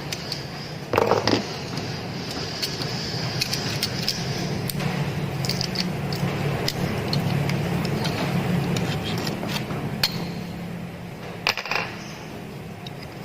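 Small metal parts and tools clinking, tapping and scraping during work on an angle grinder, with two louder knocks about a second in and near the end, over a steady low hum.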